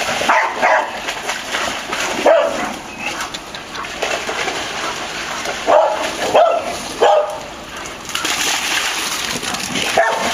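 Several dogs giving short play barks and whines while they chase and wrestle, with splashing of paws in shallow water in between.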